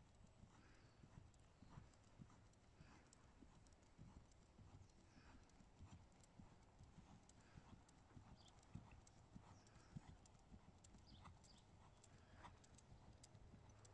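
Faint, irregular hoofbeats of a ridden horse moving around an arena on soft footing, heard as dull thuds with a few sharper clicks.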